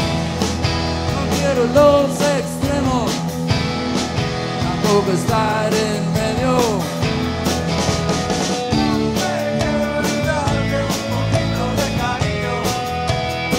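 Live rock band playing: an electric guitar lead with bending, sliding notes over a steady drum beat and bass.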